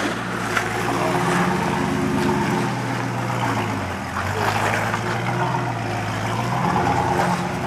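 Toyota Land Cruiser 80 series's 5-litre V8 engine running at low revs under load as the truck crawls up a rutted track; the revs sag briefly about halfway through, then pick back up.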